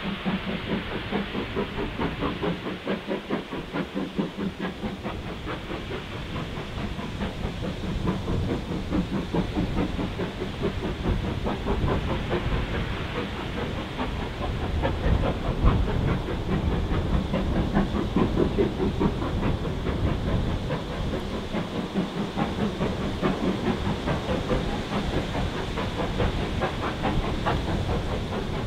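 Steam locomotive working a passenger train, its exhaust beating in a steady rhythm with a hiss of steam.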